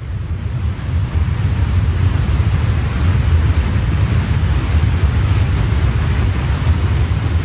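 Tornado roar sound effect: a deep, rushing wind rumble that swells over the first second and then holds steady and loud.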